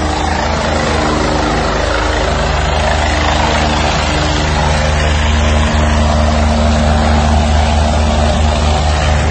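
Rescue helicopter's rotor and engine running steadily as it flies low overhead on its landing approach: a constant low hum with a broad rushing noise above it.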